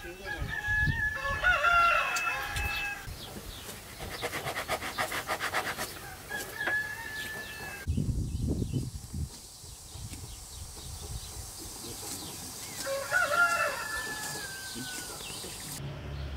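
Rooster crowing twice, about a second in and again near the end, the second crow falling away at its close. A few low knocks come about eight seconds in.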